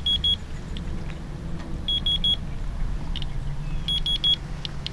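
Radiation Alert Inspector Geiger counter chirping: single short high chirps at irregular intervals, one per detected count, with runs of three or four quick beeps about every two seconds.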